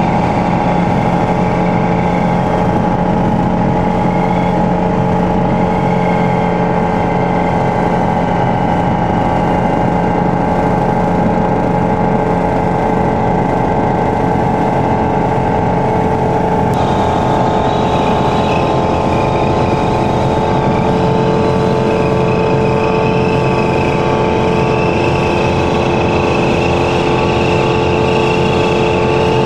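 Steady drone of a light aircraft's piston engine and rotor in flight. It holds an even pitch, then shifts abruptly to a slightly different tone about two-thirds of the way through.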